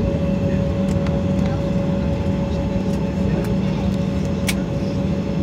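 Jet airliner cabin noise while the plane taxis after landing: the engines running at idle with a steady low hum and a constant whine. A brief click sounds about four and a half seconds in.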